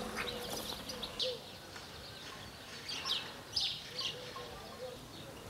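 Small birds chirping outdoors: short high calls repeating every second or so over a faint steady background hiss.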